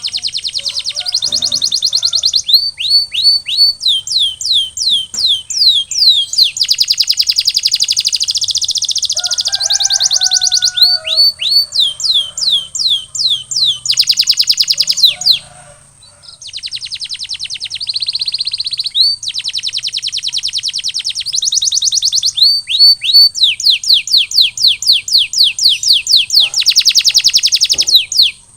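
Canary singing a long continuous song: fast rolling trills alternating with runs of quick repeated down-slurred whistled notes, with one brief pause about halfway through.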